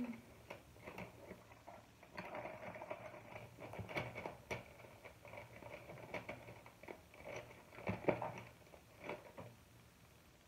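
Faint, irregular small taps, clicks and rustles of makeup items and a brush being handled and set down on a table.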